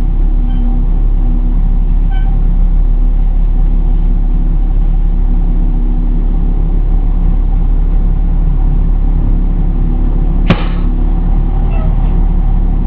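Pierce Enforcer fire engine driving slowly, its engine and road noise heard as a steady low rumble inside the cab. A single sharp click sounds about ten and a half seconds in.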